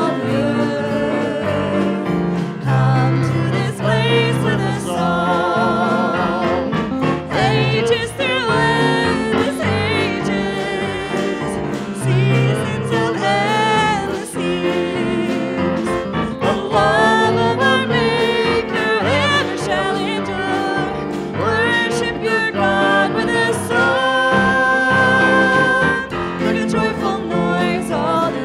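Church congregation and song leaders singing an upbeat hymn with keyboard accompaniment, the voices carrying the melody over sustained chords.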